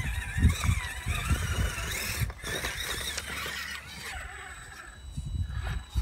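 Electric motors and gear trains of RC scale crawler trucks whining as they climb over rock, rising and falling in pitch with the throttle. Irregular low rumbles of wind on the microphone run under it. The whine fades out past the middle and returns briefly near the end.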